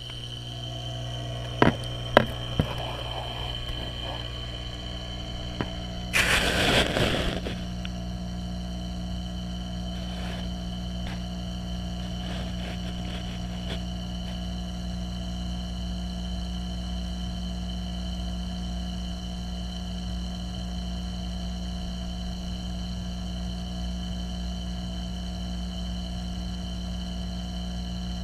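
Steady low electrical hum with a thin high whine from a saltwater reef aquarium's pumps, heard through the camera at the tank. A few sharp knocks come in the first couple of seconds, and a brief rush of noise about six seconds in.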